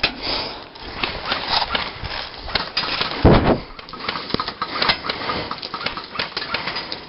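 Irregular sharp clicks and knocks of airsoft fire and BBs striking wooden boards, with one heavier, deeper thump about three seconds in.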